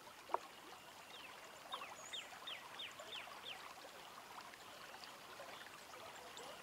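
Faint night ambience: a steady hiss of running water, with a quick run of about seven short falling chirps from a small animal starting about a second in, and a single sharp click near the start.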